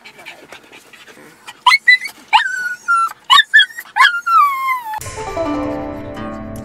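A pug whining in distress, giving about five sharp high-pitched cries from about a second and a half in, the last a long falling whine. About five seconds in they cut off and plucked-string music takes over.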